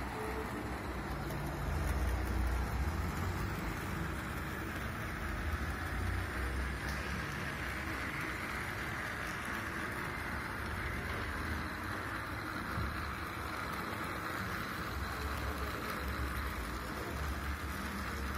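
Model railway track-inspection car running along the layout's rails: a steady whirring, rattling run of its small motor and wheels, with low rumbles at times.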